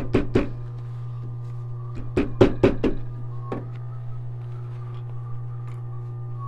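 Adler industrial sewing machine stitching leather slowly, each stitch a sharp knock at about five a second, in two short runs (at the start and about two seconds in) and a single stitch a little later, over a steady low hum.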